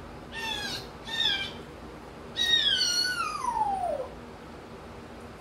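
African grey parrot calling: two short notes that slide down in pitch, then a louder, long whistle that glides steadily downward for nearly two seconds.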